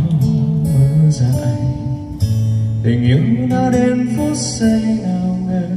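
A sung melody with guitar accompaniment, played through an RCF PA loudspeaker system during a sound check.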